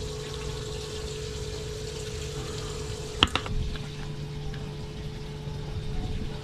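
A steady hum with water running under it, and one sharp click about three seconds in.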